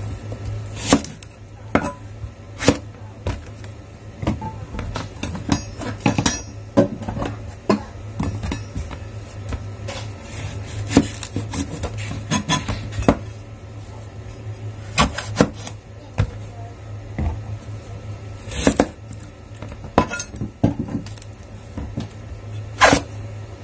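Kitchen knife cutting long purple eggplants in half, the blade knocking against the cutting surface in irregular sharp clicks and knocks, with a steady low hum underneath.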